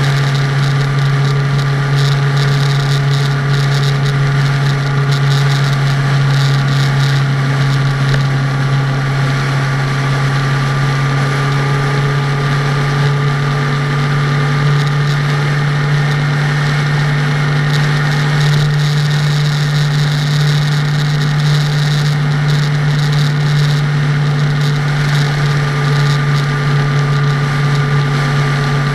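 A car travelling at road speed in strong wind: steady road and wind noise over a constant low hum.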